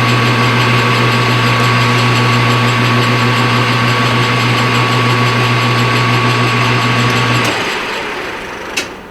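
Metal lathe running steadily with a low hum and a thin high whine, then switched off about seven and a half seconds in and winding down to a stop, with a single click near the end.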